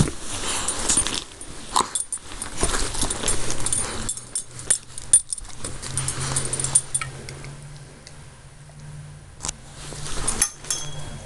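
Labrador–collie mix puppy making dog noises as it tussles with a plush bee toy, with rustling of fabric and a few sharp clicks.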